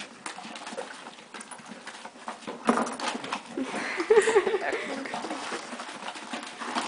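A horse eating feed from a plastic bucket: crunching and munching, with its muzzle knocking and scraping against the bucket in an irregular run of sharp clicks and knocks.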